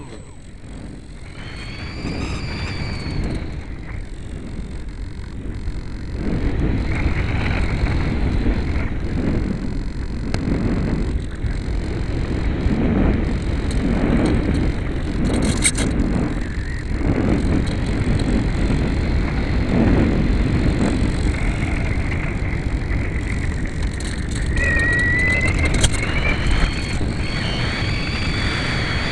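Wind rushing over the onboard microphone of a Multiplex Easy Star RC glider in flight, swelling and fading every second or two with the electric motor throttled back. About 25 seconds in, a faint whine rises in pitch and then holds steady as the motor spins up again.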